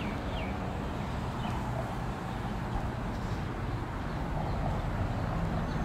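Quiet outdoor street ambience: a steady low rumble with a few faint bird chirps in the first couple of seconds.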